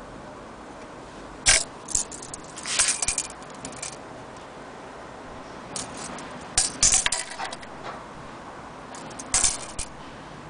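Steel tape measure clicking and rattling in short clusters, about six times, as its blade is handled and laid across a wooden barometer case, over a steady hiss.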